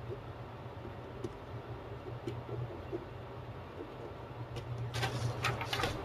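Pen tapping and scratching faintly on a sheet of paper during drawing, then the paper rustling as it is handled and picked up near the end, over a steady low hum.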